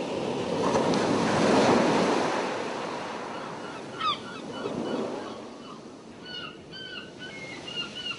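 Sea waves washing in: a swell of surf rises and falls over the first few seconds, and a smaller one comes about five seconds in. From about four seconds in, birds call over it in short, repeated, hooked notes.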